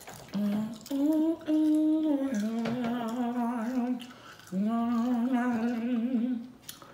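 A woman humming with her mouth closed in two long phrases of held notes that step up and down between a few pitches, the second phrase wavering slightly.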